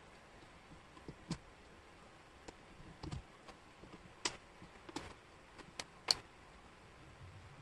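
Wooden jigsaw puzzle pieces clicking and tapping on a table as they are picked up, shifted and set down: scattered sharp clicks, the loudest about six seconds in.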